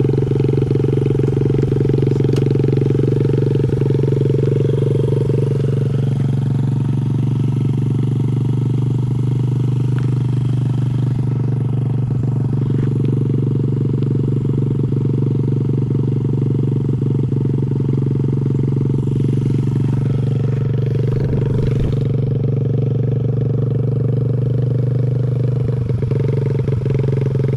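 Honda CRF50's small single-cylinder four-stroke engine running steadily with a strong low hum. It eases off a little for a stretch in the middle.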